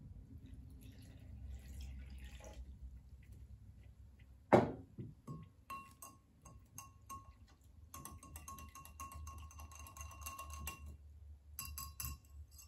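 Water poured into a glass measuring cup of cornstarch, then a sharp knock about four and a half seconds in. After that a wire whisk stirs the cornstarch slurry, clinking rapidly against the glass cup with a short ringing tone, pausing briefly near the end.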